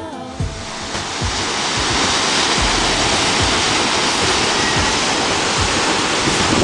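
Steady rushing roar of cascading waterfalls, growing louder over the first two seconds and then holding even, with gusts of wind buffeting the microphone underneath.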